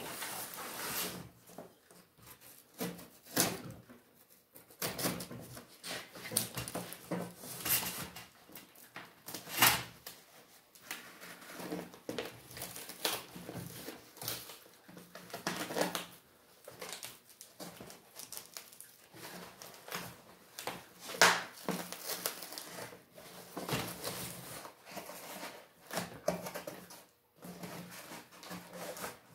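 A cardboard box being opened and handled by hand: packing tape being cut and pulled, and cardboard flaps rustling and scraping. Irregular clicks and taps come and go, with a few sharper ones along the way.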